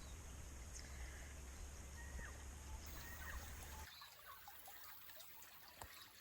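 Small bush stream trickling softly, with a few brief bird chirps.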